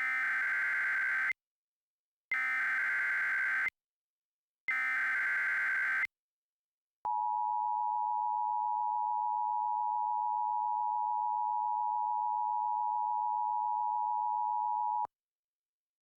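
Emergency Alert System tones. First come three identical bursts of SAME header data, a rapid buzzing warble about a second and a half long each, with a pause between them. Then the steady two-tone attention signal sounds for about eight seconds and cuts off, marking the start of an emergency alert message.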